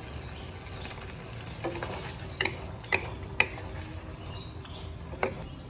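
Two wooden spatulas stirring and turning chicken pieces in sauce in a nonstick wok, with a handful of light wooden clicks and knocks against the pan, starting about a second and a half in, over a steady low background.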